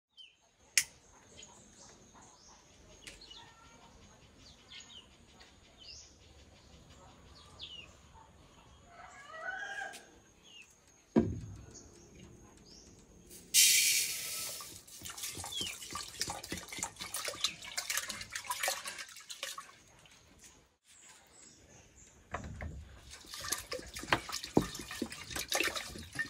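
Uncooked rice poured into a black cooking pot about halfway through: a sudden hissing rush, then a dense patter of grains. Near the end, water is poured from a plastic bottle into the pot over the rice. A single thud comes shortly before the rice.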